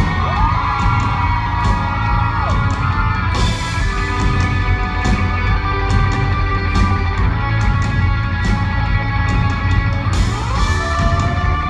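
Live rock band playing an instrumental passage: guitar over steady bass and drums, with notes that slide up and down near the start and again near the end.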